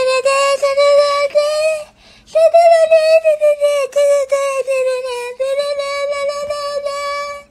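A high-pitched voice sings or chants almost on one note in long held phrases, with a short break about two seconds in.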